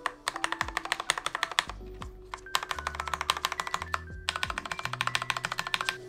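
Rapid, repeated presses of long stabilized keycaps, such as Backspace, mounted on lubed stabilizers and Cherry Red switches on a Mountain Everest Max keyboard. The keys clack quickly in three bursts over background music.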